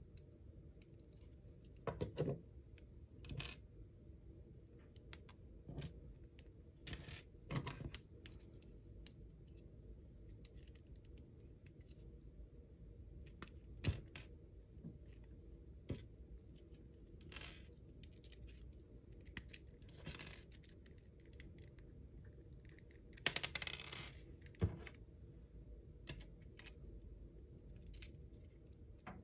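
Small plastic Lego bricks clicking as they are pried apart by hand and clattering onto a pile of loose pieces on a wooden table. Scattered single clicks, with a longer run of clatter near the end.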